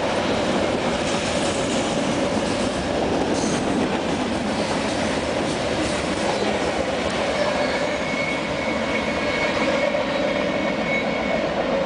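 Freight train's tank cars and loaded gondolas rolling past on the rails in a steady, loud rumble of wheel noise. A thin high wheel squeal rings for a few seconds near the end.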